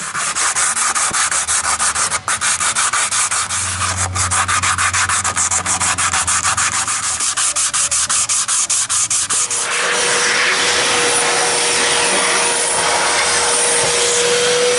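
Hand sanding of primed fibreglass with a sanding pad, in quick, even back-and-forth strokes at about six a second. About two-thirds of the way in, a vacuum cleaner starts and runs with a steady hiss and a held whine.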